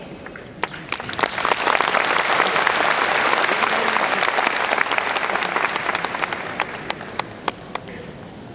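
Large audience applauding, building up about a second in and fading away toward the end, with a few louder single claps standing out.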